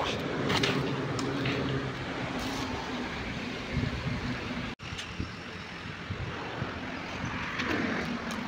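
Road traffic: a passing motor vehicle's engine hum over a steady wash of road noise. The sound cuts out for an instant a little under five seconds in.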